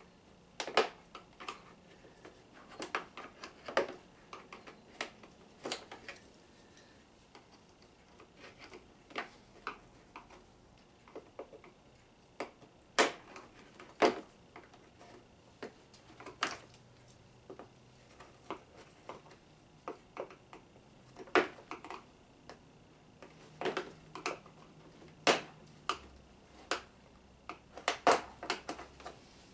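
Irregular sharp plastic clicks and snaps as a screwdriver pries at the plastic clips holding the front grille into a removed 2003 Honda Civic front bumper cover, with several louder snaps among many small clicks.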